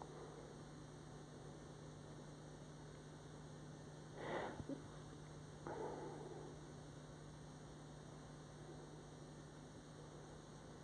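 Faint, steady electrical mains hum in the recording, with two brief soft noises about four and six seconds in, the first the louder.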